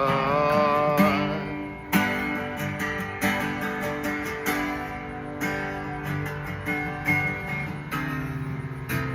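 Instrumental break in a song: acoustic guitar strumming chords about once a second, with a held sung note wavering and fading away in the first second and a half.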